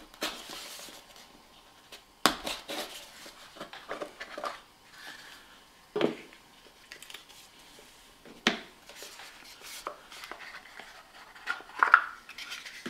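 Cardboard packaging being handled: a small cardboard box slid out of its sleeve and pulled apart, with soft scraping and a few sharp knocks of cardboard set down.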